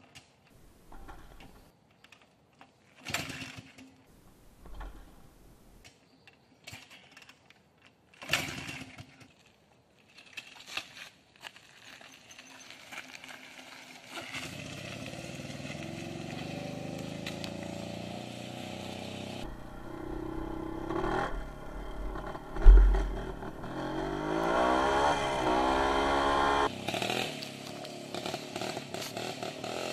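WSK 125 two-stroke single-cylinder motorcycle being kick-started: several short bursts and coughs, then the engine catches about halfway through and runs steadily, with the revs rising and falling several times near the end. A single loud thump comes shortly before the revving.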